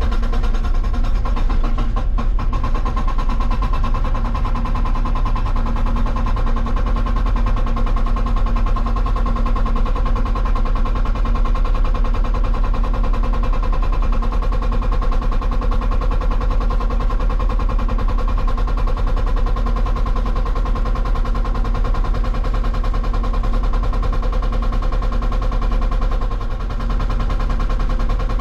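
Hydraulic rock breaker on a Hitachi 160 excavator hammering rock in a rapid, continuous rattle over the engine running under load, easing off briefly about 26 seconds in. The rock is hard.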